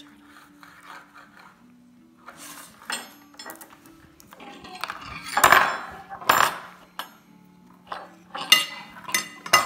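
Clatter and clinks of dishes and a hard plastic toy knocking on a wooden table, loudest about halfway through and again near the end, over a faint simple tune of plain stepping notes.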